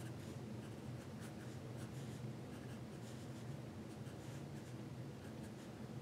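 Faint scratching of a graphite pencil on paper in many short, quick strokes as an open cartoon mouth is shaded in.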